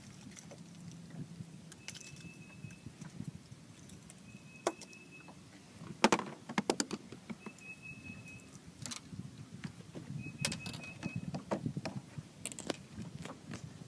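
Metal fish lip-grip tool and landing net being handled on a bass boat's deck: scattered clinks, clatter and knocks, the sharpest about six seconds in. A few short, faint, steady high beeps come and go through it.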